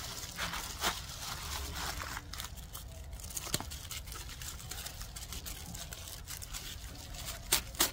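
Prickly lettuce leaves being snapped off by hand and handled: scattered small crisp snaps with rustling, and a few louder snaps near the end.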